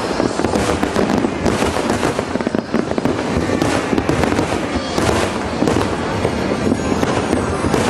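Aerial firework shells bursting one after another, a dense, continuous run of bangs and crackles.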